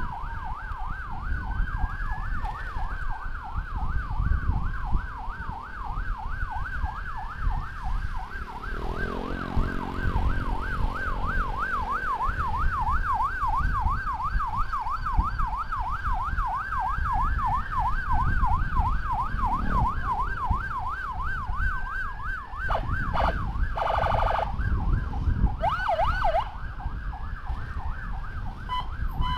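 Escort sirens sounding together over traffic: a fast warbling yelp and a slower wail that rises and falls about every five seconds. Low road and engine rumble runs underneath, and a brief louder blast comes near the end.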